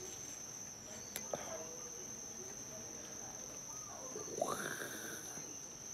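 Steady high, thin chirring of insects, with faint knife-and-fruit handling sounds as a mango is cut around its seed and split into two halves; a brief louder sound comes about four and a half seconds in.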